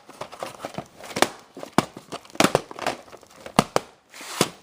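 Plastic crinkling and crackling as it is handled, with irregular sharp clicks and snaps.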